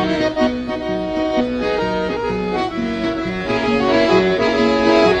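Instrumental break of a Sicilian folk song: a lively melody over a steady bass beat, with no singing.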